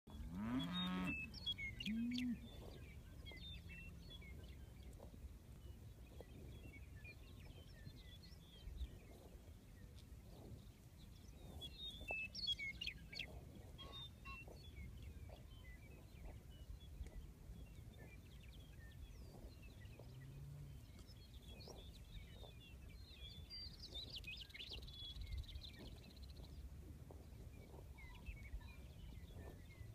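Western meadowlarks singing and calling on and off over a steady low rural background. Near the start a cow lows twice, the loudest sound, and a fainter low call comes about two-thirds of the way through.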